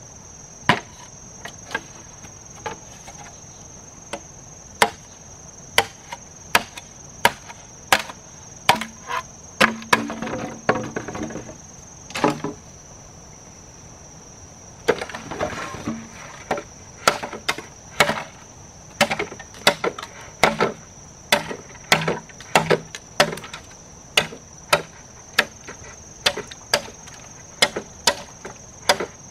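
Wood being struck over and over with a tool, about one to two sharp blows a second, with a short pause near the middle. A steady high-pitched insect drone, crickets or the like, runs underneath.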